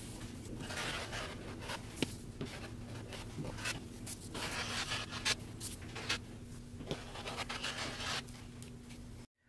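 Rotary cutter rolling through two layers of fabric on a cutting mat, a soft scraping hiss in a series of short strokes, with the paper pattern rustling and a few faint clicks.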